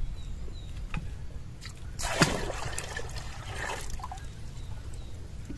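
Water trickling and splashing, with a louder stretch of splashing about two seconds in that lasts about two seconds.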